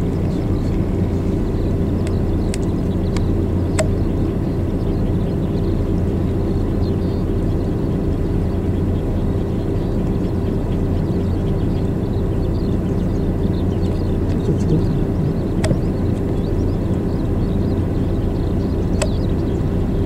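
A steady low engine hum with a few faint clicks.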